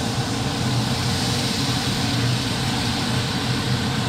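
Water poured into a hot pan of fried ginger, garlic and pickled cabbage, hissing and sizzling as it hits the oil and swelling through the middle. Under it runs the steady low hum of the kitchen exhaust fan.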